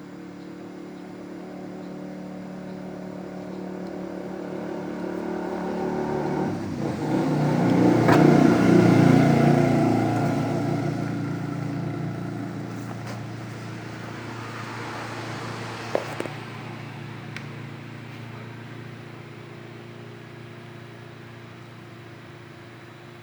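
A motor vehicle passing by, its engine sound swelling to a peak about eight seconds in and then slowly fading away. A short click sounds about sixteen seconds in.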